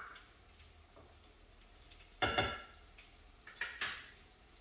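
A metal cooking utensil clinking against cookware: one loud ringing clink a little past two seconds in, then two lighter clinks about a second later.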